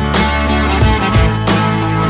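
Instrumental background music: guitar over a steady beat.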